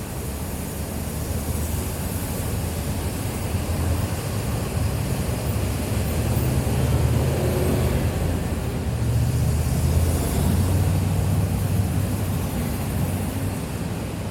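City street traffic: a steady low rumble of vehicle engines and tyres under a wash of street noise, growing louder in the middle as heavier traffic passes, then easing off.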